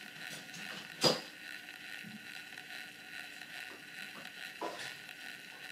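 A drinking straw rubbing on the spinning rotor of a small 3D-printed pulse motor, put there as drag to slow it: a faint steady rubbing with one sharp tick about a second in and a softer tick near the end.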